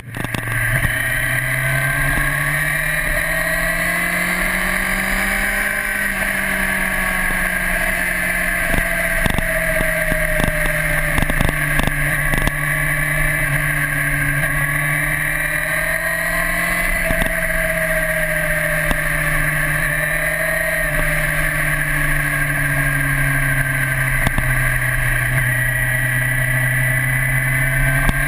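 1998 Honda CBR900RR Fireblade's inline-four engine heard from onboard while riding, its revs rising and falling gently as the bike is ridden through corners. A few short knocks come around the middle.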